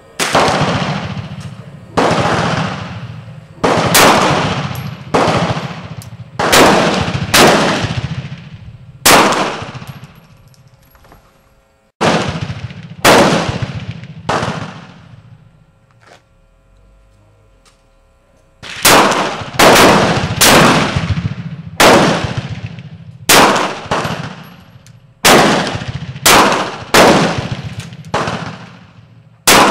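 Springfield Armory XDm 9mm pistol firing about twenty single shots at a slow, uneven pace, one to two seconds apart, each followed by a long fading echo. There is a pause of about four seconds midway.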